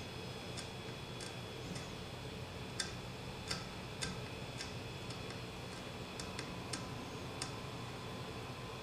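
A metal scraper blade worked under the edge of a 3D printer's heated bed sheet, making about a dozen sharp, irregular clicks as it pries the print surface loose from its double-sided tape. A steady hum from the powered Ender-3 printer runs underneath.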